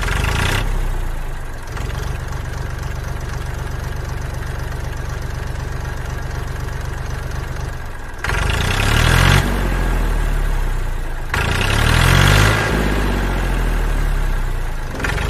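Tractor engine running with a steady low chug, then revving up and back down twice, from about eight and eleven seconds in.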